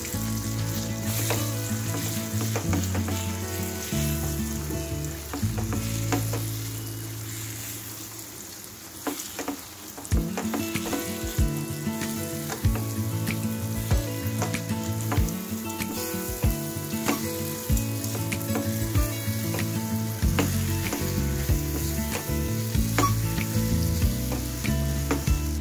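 Coarse chana dal paste frying in hot oil in a nonstick kadhai, sizzling while a silicone spatula stirs and breaks it up with many short scraping taps. The sizzle quietens briefly about eight to ten seconds in, then picks up again.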